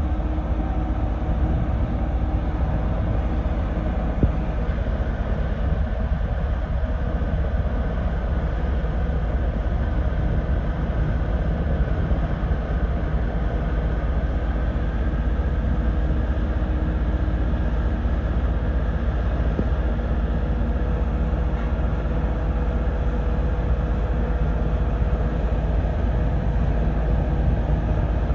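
Heavy construction machinery running steadily: a continuous low engine rumble with no break or change.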